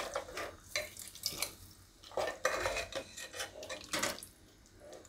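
A metal ladle stirs potato pieces in watery gravy inside a pressure cooker, with irregular clinks and scrapes of the ladle against the pot and a slosh of liquid. The stirring dies away near the end.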